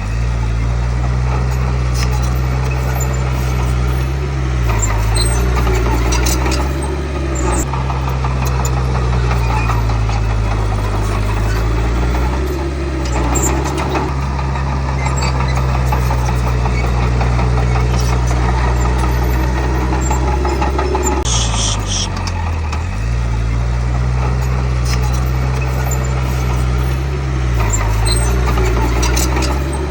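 Komatsu D31P bulldozer's diesel engine running steadily, its pitch sagging briefly a few times as it takes load, with short high squeaks now and then.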